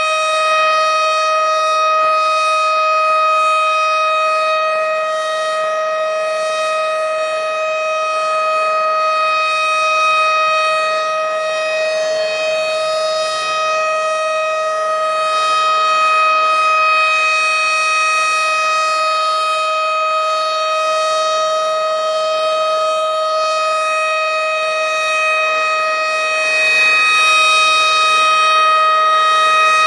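Tornado warning siren sounding a steady held tone with rich overtones, never gliding in pitch, its loudness swelling and fading slightly.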